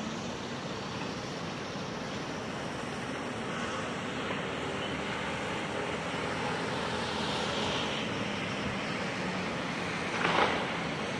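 Steady rushing background noise with one short, louder sound about ten seconds in.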